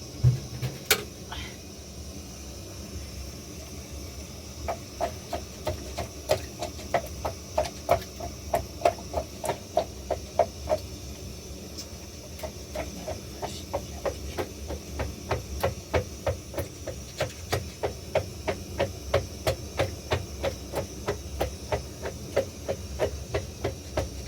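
Rhythmic knocking, about two sharp strikes a second, each with a short ring, starting about five seconds in and pausing briefly near the middle, over a steady hiss.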